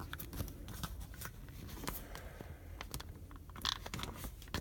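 Scattered small clicks and scrapes of a metal putty knife working against the plastic retaining tabs of a car window switch as it is pried out of its panel, with a short louder scrape about four seconds in.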